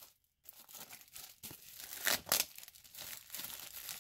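Plastic shrink wrap being torn and peeled off a boxed Blu-ray steelbook by hand, with irregular crinkling and crackling that is loudest about two seconds in.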